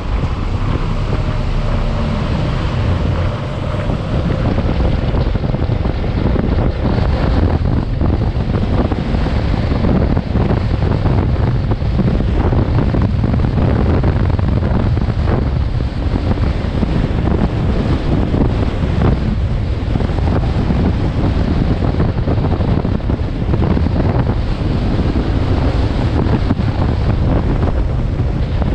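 Heavy wind buffeting the microphone of an action camera on a moving motorcycle: a loud, steady rush with constant flutter, strongest in the low end. A faint steady tone sits under it for the first few seconds.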